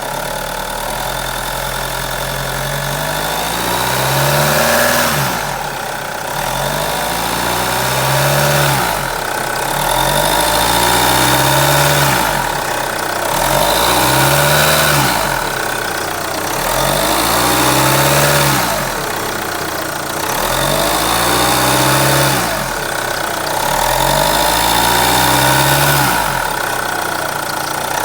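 Vauxhall/Opel B20DTH 2.0 diesel engine under the bonnet being revved up and let fall back repeatedly, about every three to four seconds, with a droning noise whose cause the owner is trying to trace.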